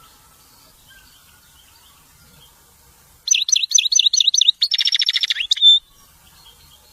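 European goldfinch singing: faint twittering, then about three seconds in a loud phrase of half a dozen quick repeated notes running into a fast buzzy trill that ends on a short high note.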